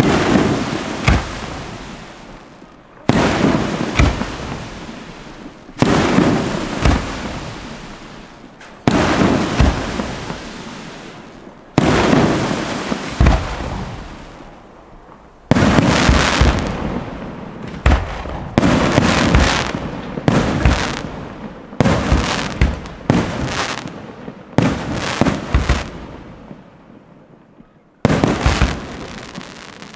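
Aerial firework shells bursting one after another, each a sharp bang trailing off in a long rolling echo. The bangs come about every three seconds at first, then quicken to roughly one a second after about the halfway point.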